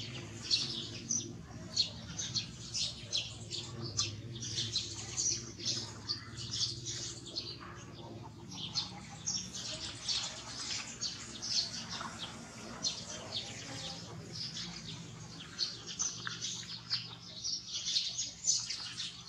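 Many small birds chirping and twittering in quick, irregular short calls, over a faint low steady hum.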